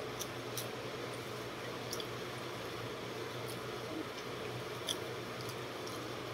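Wet mouth sounds of chewing rice and fish eaten by hand: scattered faint smacking clicks, the strongest about five seconds in, over a steady background hum.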